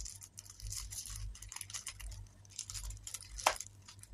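Clear plastic wrapper crinkling and crackling as it is peeled off a small wrapped sweet, with one sharper crackle about three and a half seconds in.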